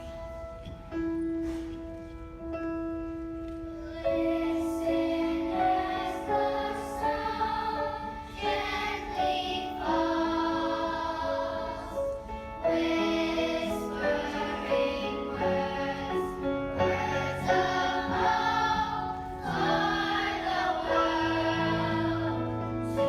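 Children's choir singing a slow, gentle song with piano accompaniment; the piano plays alone at first and the voices come in about four seconds in.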